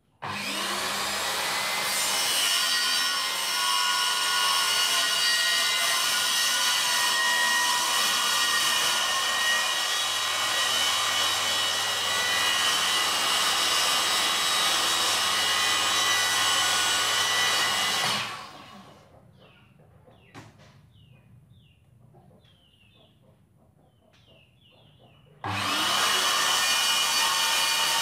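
Handheld electric circular saw spinning up and cutting a wood panel along a guide rail, running steadily for about eighteen seconds before it is switched off and winds down. After a pause of about seven seconds it starts again suddenly and runs on.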